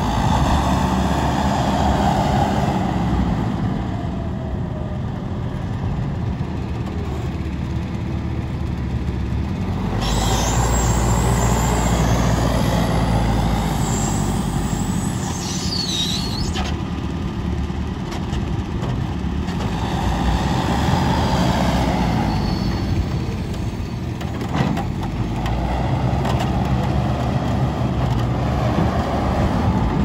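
JCB wheel loader's diesel engine running under working load, its level swelling and easing several times. For a few seconds around the middle there is a high-pitched squeal.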